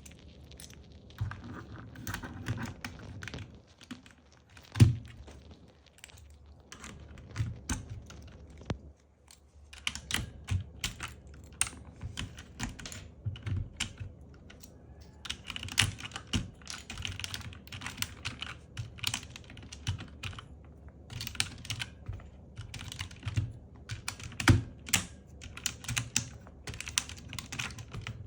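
Typing on a Zifriend KA646 mechanical keyboard: a clatter of key presses, sparse at first with one louder knock about five seconds in, then fast, steady typing from about ten seconds in.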